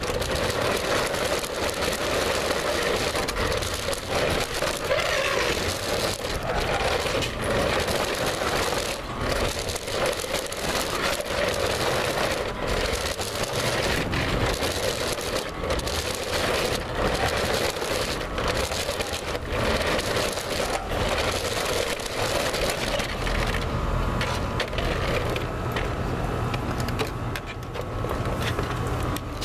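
Toy remote-control car driving, heard from a camera mounted on it: a steady motor whine with constant rattling and knocking of the chassis. The whine fades near the end.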